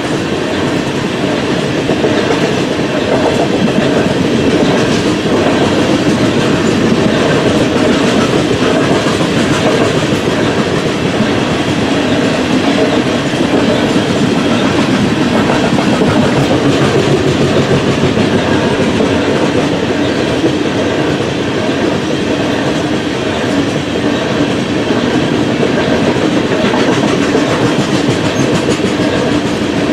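Loaded coal gondolas of a freight train rolling past steadily, wheels clacking on the rails.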